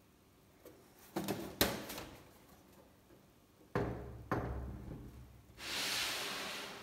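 The metal case of a Sophos XG 430 rack-mount firewall appliance being handled on a wooden tabletop. There are a few light knocks about a second in, then two thumps about half a second apart as it is laid flat. Near the end it makes a scraping slide across the wood.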